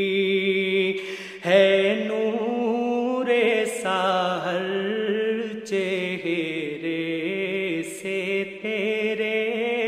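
Devotional naat singing with no instruments or beat: a voice holding long, wavering, melismatic notes between the lines of the verse.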